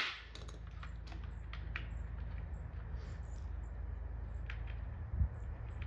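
Faint, scattered light clicks and ticks of plastic light sockets and wire being handled, with a single low thump about five seconds in, over a steady low hum.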